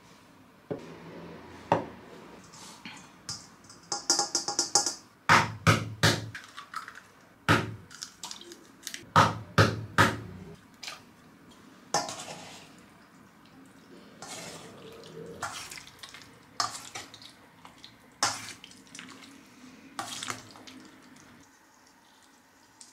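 Eggs being cracked on a stainless steel mixing bowl and a metal spoon knocking and scraping in the bowl as the eggs are stirred into fried potato and onion slices. The sound is a string of sharp clicks and knocks, with a short metallic ring from the bowl about four seconds in. The knocks come thickest between about five and ten seconds in, and are more spaced out after that.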